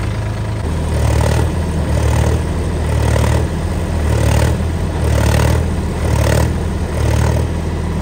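Mahindra tractor diesel engine running steadily, its note pulsing about once a second.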